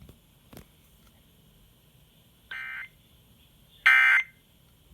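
Emergency Alert System SAME data bursts heard over FM radio: short, screechy digital warbles of two alternating tones, repeated about once every second and a half, the second louder than the first. Coming right after the spoken warning, they are the end-of-message code that closes the alert.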